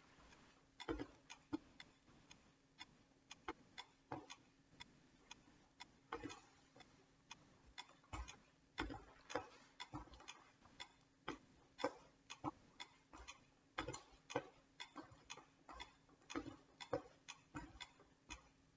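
Metronome clicking steadily at 120 beats per minute, about two clicks a second. Among the clicks are soft thuds of feet stepping up onto and down from a wooden bench in time with the beat.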